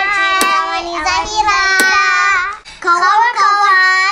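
Young girls singing, two long drawn-out held notes: the first about two and a half seconds long, then a brief break and a second held note near the end.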